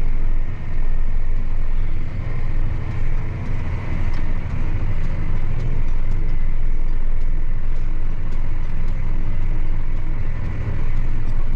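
Farm tractor engine running steadily under load while pulling a ripper through the field, heard from inside the cab, with a faint steady whine above the drone.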